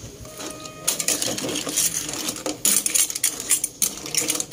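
Clam shells clinking and clattering against a metal ladle and the metal pot as the halaan and chili leaves are stirred, in a run of irregular sharp clicks.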